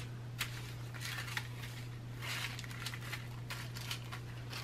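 Small zip-lock plastic bags of diamond-painting drills being handled and moved about, crinkling in short, scattered rustles. A steady low hum runs underneath.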